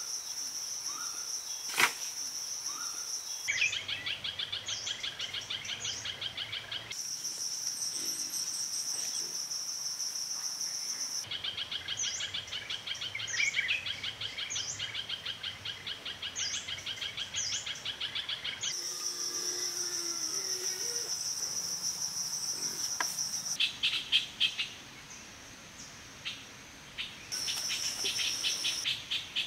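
Insect chorus: a steady high-pitched buzz alternating with a fast pulsing cricket-like trill, switching abruptly every few seconds, with short bird chirps over it. A few sharp knocks stand out, one about two seconds in and a cluster near the end.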